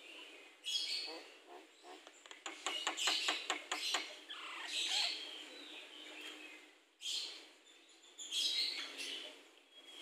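Javan myna calling: a series of harsh, scratchy calls with a rapid run of clicks about a third of the way in.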